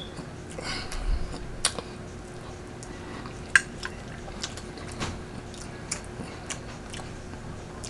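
A person chewing and biting turkey wing meat close to the microphone, with scattered sharp wet mouth clicks and a faint steady hum.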